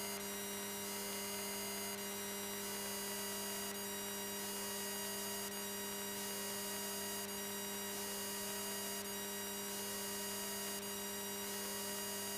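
Steady electrical hum made of several held tones, with a faint short rising whine repeating about once a second. It is electrical noise on the light aircraft's intercom or radio audio feed while the radio is silent.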